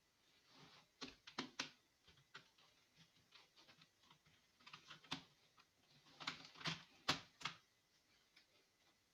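Faint, irregular clicks and taps of small hard objects, coming in short clusters with gaps between them.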